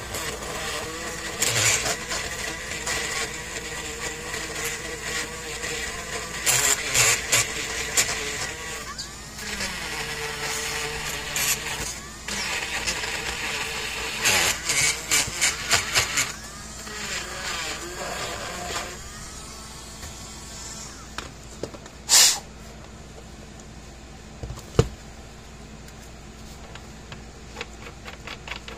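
Cordless Dremel Micro rotary tool running at a steady whine, growing louder and rougher in spells as the bit works on a fence charger's terminal post. It stops about two-thirds of the way through, followed by two sharp clicks a few seconds apart.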